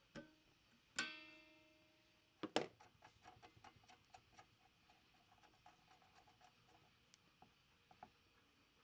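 Metal-on-metal sounds from reassembling a cast-iron mechanical floor jack. A steel extension spring clicks onto its hook with a brief ringing twang about a second in, then a louder clank follows. After that comes a run of light, irregular ticks as a bolt and square nut are worked by hand.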